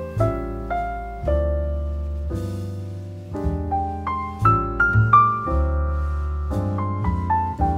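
Background piano music: soft chords struck every half second to a second over a sustained bass, each note fading after it is played.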